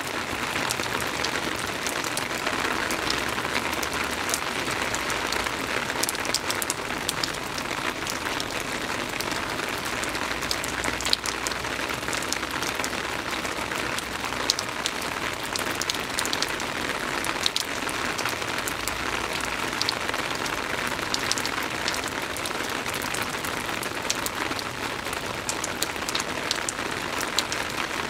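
Soft rain falling steadily: an even hiss with many scattered sharp drop ticks.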